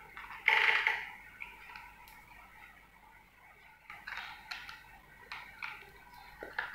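Cat eating dry kibble from a plastic bowl: scattered small crunches and clicks of pellets against the bowl, with a brief louder rattle about half a second in.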